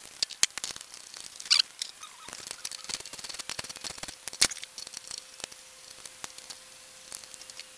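Small metal clicks, taps and scrapes of a hand tool and fingers working on a lawn mower engine as parts are taken off it, with a brief squeak about a second and a half in.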